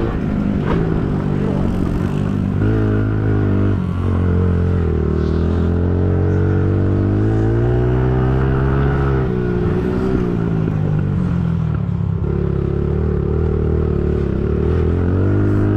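Pit bike engine being ridden hard, its pitch climbing over a few seconds under throttle and then dropping suddenly as the throttle is shut or a gear is changed, several times over.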